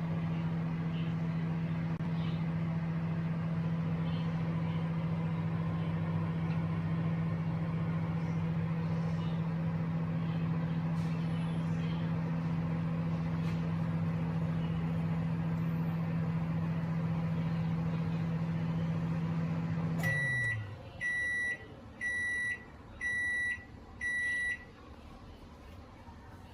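Sharp R-22A0(SM)V microwave oven running with a steady hum that stops about 20 seconds in, its pitch sagging as it winds down. A short series of high beeps follows, about one a second, signalling the end of the heating cycle.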